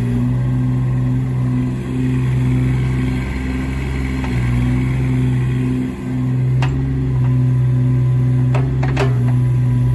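Kubota KX016-4 mini excavator's small three-cylinder diesel running steadily under hydraulic load while the machine slews and works its boom and arm. A few sharp metallic clicks come in the second half.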